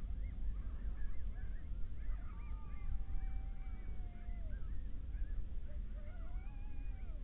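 Coyotes howling and yipping in answer to a predator call. Long wavering howls fall away at the end, one about two and a half seconds in and another near the end, over a chorus of short high yips and a steady low rumble.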